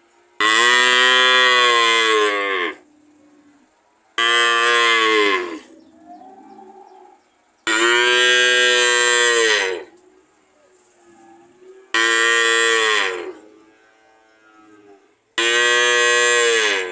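A cow mooing: five long moos a few seconds apart, each lasting one and a half to two seconds and dropping in pitch as it ends.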